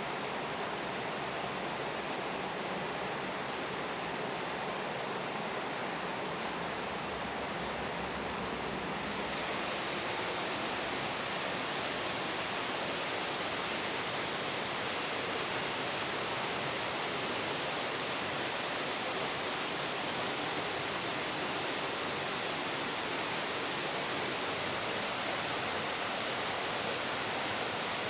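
Rushing water of a waterfall, a steady even rush that grows louder and brighter about nine seconds in.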